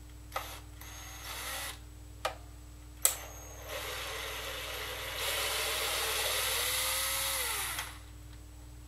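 Cordless drill-driver backing a case screw out of an Aiwa CS-230U boombox. It gives a short burst and a few sharp clicks, then a longer run of about four seconds that grows louder partway through, its whine rising in pitch before it stops.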